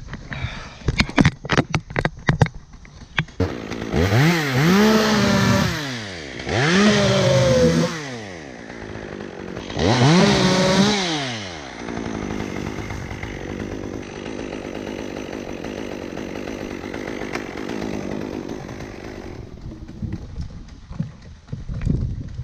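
Chainsaw revved three times, its pitch climbing and falling each time, then running steadier at a lower speed until it stops a few seconds before the end. A quick run of sharp knocks comes first.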